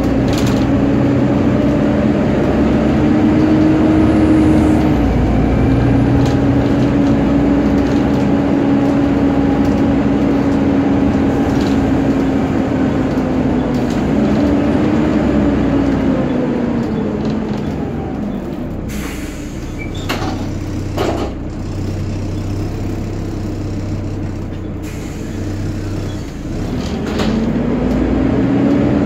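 Volvo B7TL double-decker bus running, heard inside the upper deck: the engine cooling fan's hoover-like whine drifts up and down in pitch with engine speed. About two-thirds of the way through the whine falls in pitch and fades for several seconds, with a few knocks, then rises again near the end.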